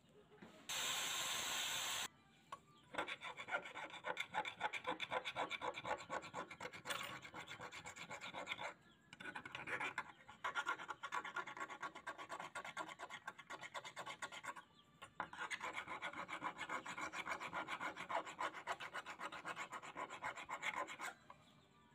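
Hand file rasping across a steel scissor blade in quick back-and-forth strokes, in three runs broken by short pauses. A loud steady hiss lasts about a second and a half near the start.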